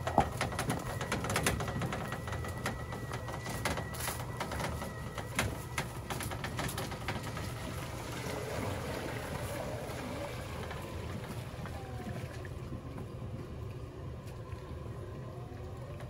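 Burro robotic cart's drive running as it rolls through mud and standing water, a steady low hum with a thin whine for the first few seconds, and many crackling clicks from the wet ground early on; the sound fades as the cart pulls away.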